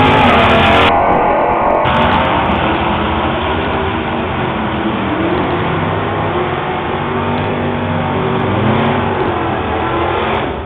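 Two drag cars, a Superstock Plymouth Duster and a Chevrolet Monte Carlo, launching at full throttle and running hard down the strip. The engines are loud throughout, with the pitch climbing again and again as they pull through the gears.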